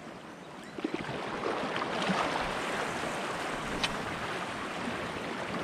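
Small waves lapping and washing against a rocky shoreline, with wind rushing over the microphone that swells about a second in. A single sharp click comes near four seconds in.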